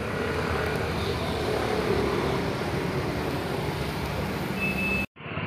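Steady street traffic noise with a low hum. About five seconds in it drops out abruptly for a moment, then resumes sounding duller.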